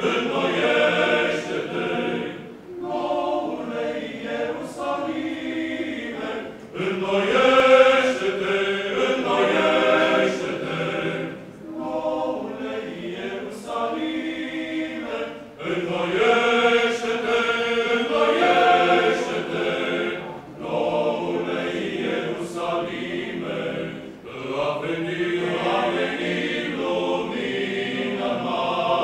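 Male Orthodox church choir singing chant a cappella, in phrases of several seconds with short breaks for breath between them.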